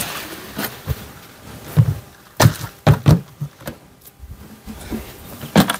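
The tail of soaked barley grain pouring into a plastic bucket, then a series of knocks and thuds as the plastic buckets are handled and set down.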